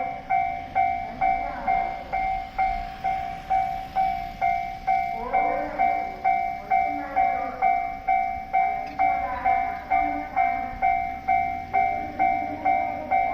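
Japanese railway level-crossing warning bell ringing steadily, an evenly repeating two-pitch ding about twice a second: the crossing's alarm sounding as a train approaches.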